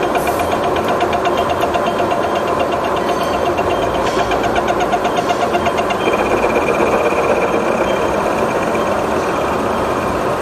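Milling cutter on a horizontal machine spindle cutting metal along a slot in a stamping press's base-plate table, being re-machined. The cut makes a fast, even rattling chatter for about the first six seconds, then settles into a steadier high-pitched tone.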